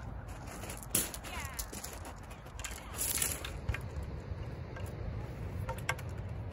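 Sharp clicks and knocks of beachcasting rods being handled and their sections fitted together, the loudest about a second in and another cluster around three seconds in, over a steady low rumble.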